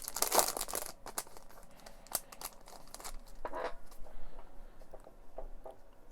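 Foil trading-card pack being torn open, the wrapper crinkling hard in the first second, then lighter crinkles and clicks as it is handled, fading toward the end.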